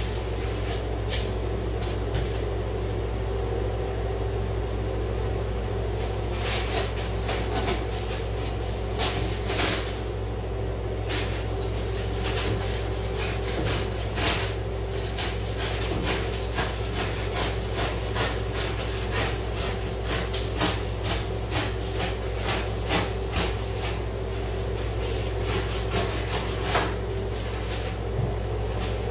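Rigid foam insulation board being handled, rubbed and scraped as it is worked into a stud wall cavity: many short scratchy scuffs and taps, some in quick runs, over a steady low hum.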